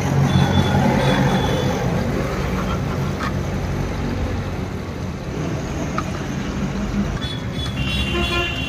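Roadside traffic noise with a vehicle engine running close by. A brief high-pitched tone sounds near the end.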